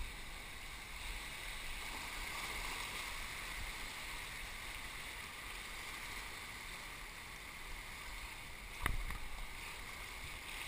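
Fast river water rushing and splashing steadily around a stand-up paddleboard running a rapid, with a single knock about nine seconds in.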